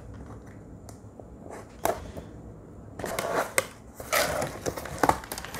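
Cardboard shipping box being opened by hand: faint scrapes and a single sharp knock, then, about three seconds in, a stretch of rustling and crackling as the flaps and packing are pulled open.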